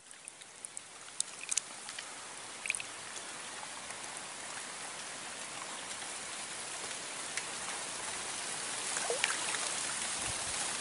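Steady hiss of flowing, trickling river water, growing slightly louder, with a few faint short ticks and chirps in the first few seconds.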